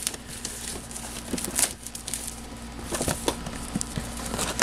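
Rustling and crinkling of plastic-wrapped boxes being handled and lifted out of a cardboard shipping box, with scattered short crackles and light taps.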